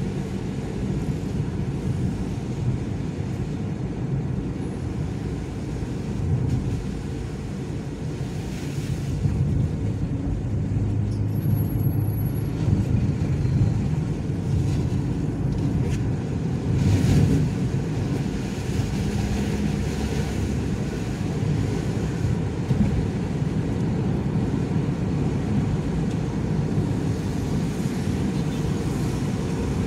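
Steady cabin noise of a car driving on wet road at about 50 km/h: a continuous low rumble of tyres and engine, with a couple of brief louder swells partway through.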